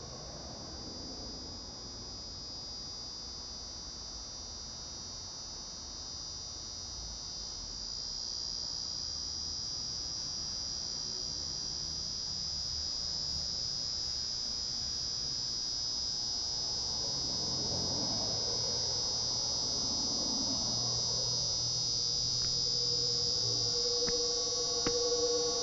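Sustained high-pitched ringing drone in a horror film soundtrack, slowly growing louder over a faint low hum. Deeper musical tones come in near the end.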